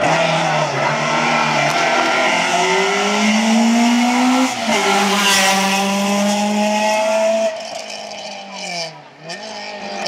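Rally car engine accelerating hard, its note climbing, dropping at an upshift about four and a half seconds in and then holding high. Near the end the sound falls away and the revs dip and pick up again.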